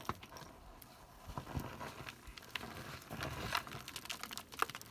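Hiking shoes scuffing and scraping on loose, gritty sandstone, with scattered small clicks of grit and a few dull knocks, as a hiker climbs down a steep rock face.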